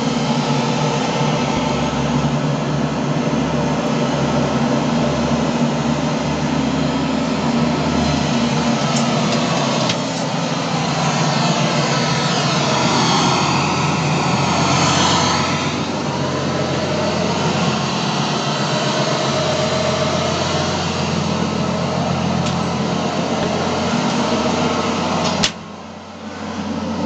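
Steady diesel engine-room noise of a submarine: a constant low hum under a wide hiss, with no change in speed. It cuts off with a click near the end, then comes back. This is playback in a museum boat, not running engines.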